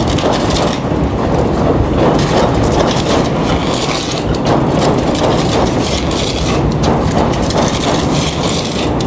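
Subway train running on the elevated track, a steady loud rumble with dense rattling and clacking of wheels and car bodies.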